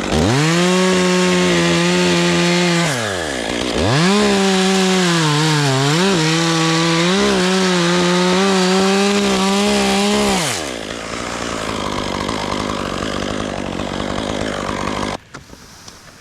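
Chainsaw cutting chestnut oak at full throttle: it revs straight up, drops back briefly about three seconds in, revs up again and dips for a moment around six seconds in as it loads in the cut, then holds high until about ten and a half seconds in. A rougher, lower noise follows and cuts off suddenly about fifteen seconds in.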